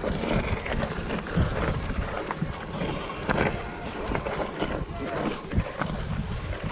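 Mountain bike riding over a rough, rutted grass-and-stone singletrack: steady tyre and wind rush with frequent knocks and rattles of the bike over bumps.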